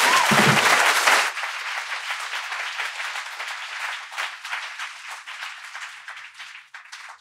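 Audience applauding, loud for the first second or so, then thinning out and fading away.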